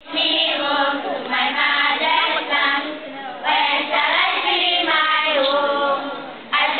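A large group of schoolchildren singing a marching song together in unison. The singing comes in phrases of about three seconds, with a short break about three seconds in and another near the end.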